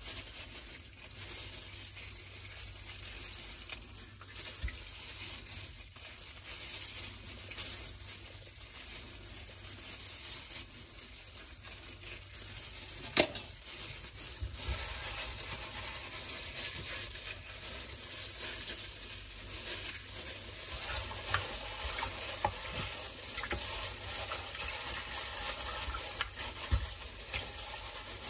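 Plastic-gloved hands rubbing raw chicken breasts with lemon halves in a glass bowl of liquid, a steady wet handling sound with small clicks. One sharp tap comes about halfway through.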